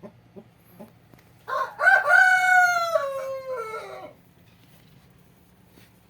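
A rooster crowing once, one long call of about two and a half seconds that drops in pitch at its end, after three short sharp sounds. A faint low hum runs underneath.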